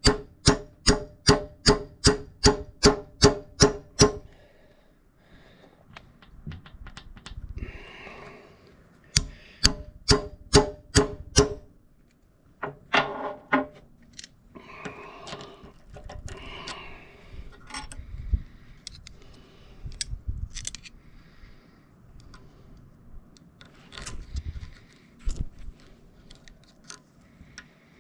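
Hammer tapping a steel retaining pin into an excavator bucket tooth, metal on metal with a ringing note, about three strikes a second for the first four seconds. A second run of strikes comes about nine seconds in, then scattered lighter knocks and clinks of handling.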